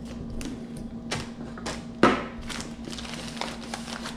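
Packaged groceries being shifted and set down on a countertop: plastic food bags rustling and light knocks, with one louder thud about two seconds in. A faint steady hum underneath.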